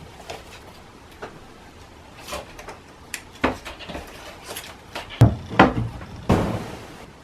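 A series of short knocks and clunks of things being handled, like wood or cupboard doors, the loudest two about five seconds in, followed by a brief rushing sound.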